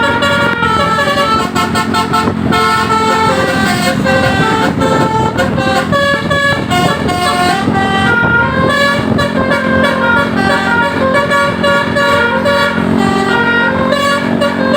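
Telolet basuri multi-tone bus horn playing a melody: a continuous run of loud horn notes that step up and down in pitch every fraction of a second.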